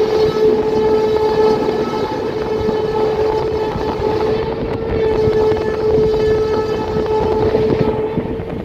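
A train horn held in one long, steady note over the loud rush of wind and wheels on rail, heard from an open coach door as the train runs through a station at speed.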